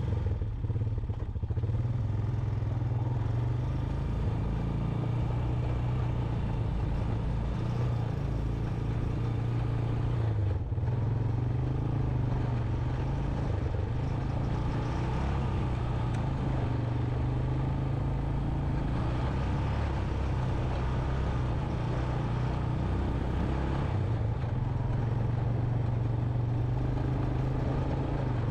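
Honda Recon 250 ATV's single-cylinder four-stroke engine running steadily under way on a rough dirt trail, dipping briefly about ten seconds in.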